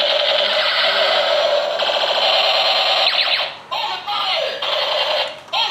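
Battery-powered light-and-sound toy AK-47 playing its electronic rapid-fire gun sound effect through its small speaker, harsh and buzzing. It cuts off briefly about three and a half seconds in and again near the end, each time starting again with a falling tone.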